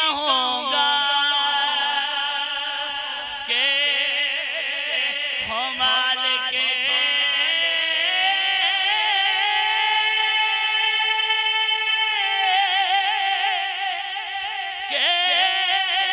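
A man singing an Urdu devotional naat unaccompanied into a microphone, drawing out very long held notes with a wavering, ornamented pitch. New phrases start a few seconds in, around six seconds, and near the end.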